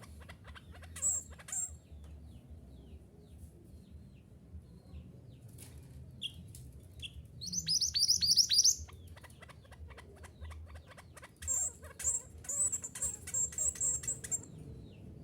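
Mantenan gunung, a mountain minivet, calling: scattered thin, high chirps, a loud burst of rapid high notes about halfway through, and a fast, high trilled series near the end.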